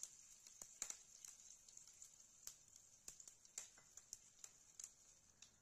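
Faint, irregular pops and crackles, a few a second, of mustard seeds, cumin seeds and curry leaves spluttering in hot oil in a frying pan.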